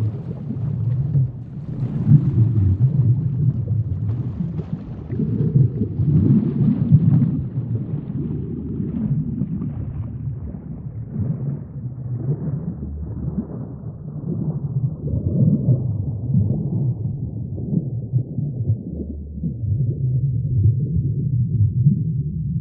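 Muffled underwater ambience: a deep, swelling and ebbing rumble of water with faint crackle above it, growing duller towards the end.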